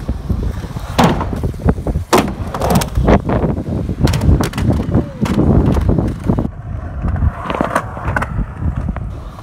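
Skateboard wheels rolling over concrete and ramp surfaces with a steady rumble, broken by several sharp clacks and knocks of the board hitting the ground and ramps.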